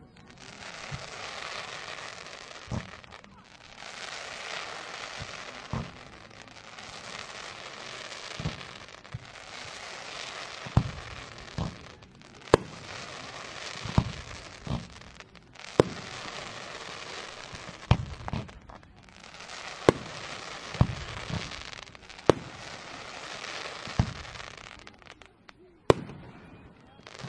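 Fireworks going off: dense crackling in stretches of a few seconds with brief lulls between them, punctuated by sharp loud bangs every second or two.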